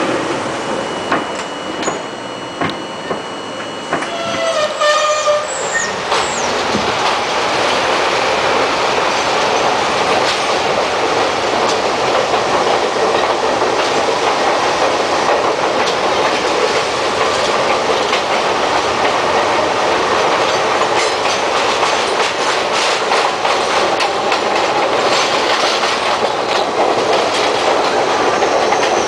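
R42 subway train on elevated track, quiet at first, then setting off: from about six seconds in, the wheels and motors build to a steady loud rumble with clickety-clack over the rail joints. A brief high-pitched sound comes about five seconds in.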